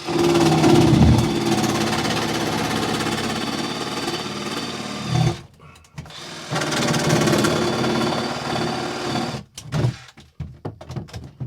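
Power drill running in two long runs, about five and three seconds, drilling holes through a sailboat's fiberglass. A few short clicks and knocks of handling follow near the end.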